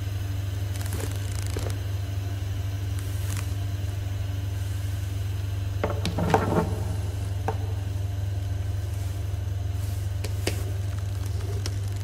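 A steady low hum runs throughout, with a brief louder sound a little after six seconds in and a few light clicks later.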